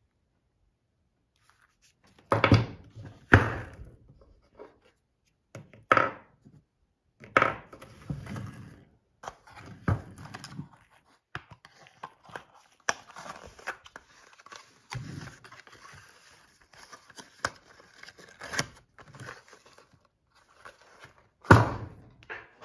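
A plastic cartridge tray loaded with .380 rounds and its cardboard ammunition box being handled on a wooden table. Irregular knocks and clacks, with sliding and scuffing between them as the tray goes into the box. The loudest knocks come a few seconds in and near the end.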